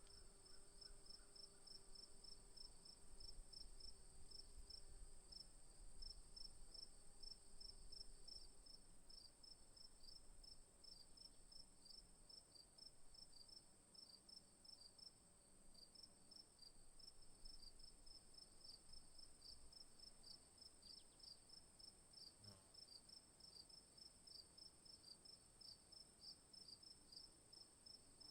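Faint insects chirping: a steady high-pitched drone with a quick pulsing chirp beneath it, about five chirps a second.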